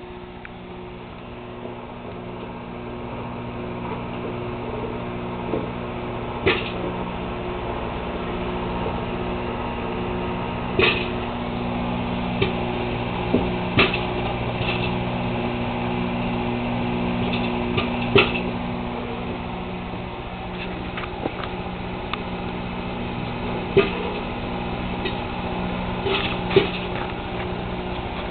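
1,000-watt Hamilton Beach microwave oven running with a steady hum while popcorn kernels inside pop one at a time, a sharp pop every few seconds: the popping has just begun.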